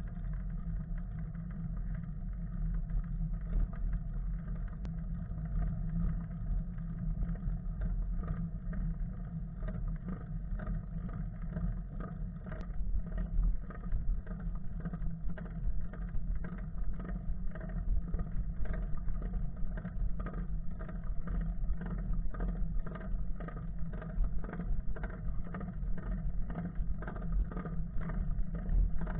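Steady low rumble of wind buffeting and road vibration on a bicycle-mounted camera rolling along a paved road, with frequent small knocks and rattles from bumps, more of them in the second half.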